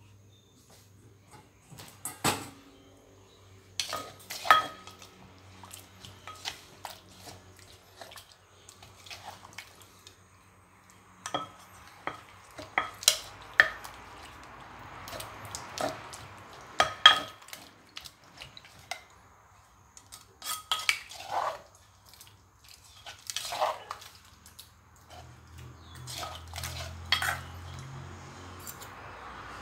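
Wooden pestle knocking and an orange plastic spoon scraping inside a clay som tam mortar as the chilli, lime and tamarind dressing is lightly pounded and stirred: irregular knocks and clatter with a few sharper strikes, and scraping between them.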